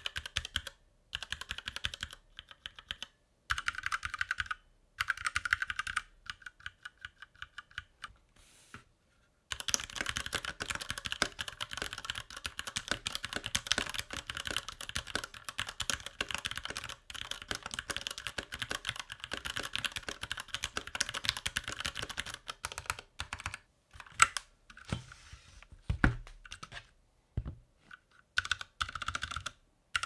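Typing on a Ducky Mecha SF 65% mechanical keyboard with Cherry MX Red switches and a metal plate and body. Short bursts of keystrokes give way about ten seconds in to a long run of fast, continuous typing, which thins out near the end with a few low knocks. The clack is a little higher-pitched, which the reviewer puts down to the floating keycaps and metal build.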